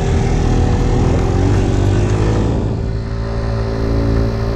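Scooter's small engine running while riding, with wind and road rush over it. The engine note falls over the first few seconds as it eases off, then holds steady.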